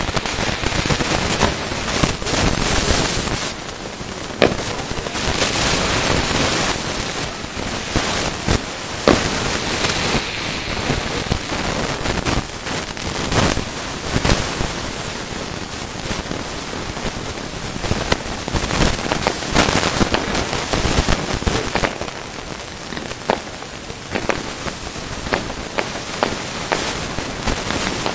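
Fireworks display going off: a dense, continuous crackling with sharp bangs of shells bursting at irregular intervals, every second or few seconds.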